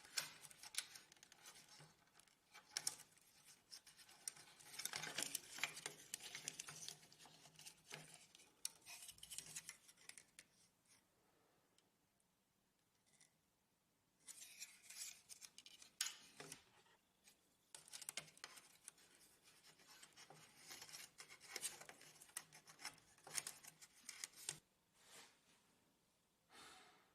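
Faint, scattered clicks and scraping of plastic printer parts being handled and fitted by hand, in short clusters with near silence between them.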